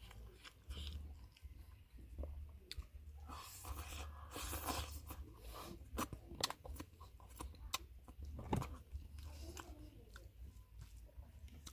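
A person chewing and biting food: irregular smacks and clicks, busiest around the middle.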